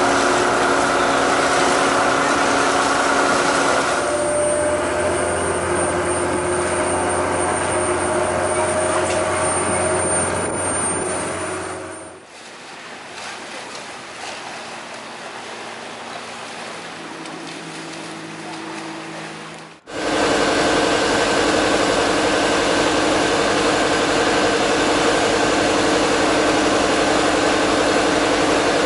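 Work-boat engines running steadily: a constant mechanical drone with a pitched hum. The sound changes abruptly at edits about 4, 12 and 20 seconds in, and is much quieter between about 12 and 20 seconds.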